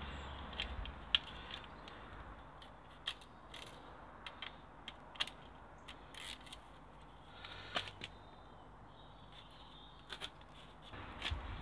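Small socket ratchet and hand tools working the nuts on the plastic rear cover of a Bosch alternator: faint, irregular clicks and ticks, a few each second at most, with pauses between them.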